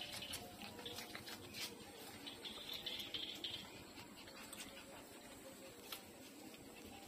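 Puppies nursing from a standing mother dog: faint smacking suckling noises and small scattered clicks of paws and claws on a tiled floor.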